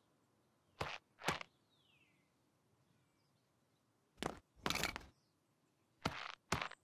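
A few separate short knocks and scuffs from rubber boots on stone paving and a garden hose being handled, with a longer half-second rush of noise about halfway through.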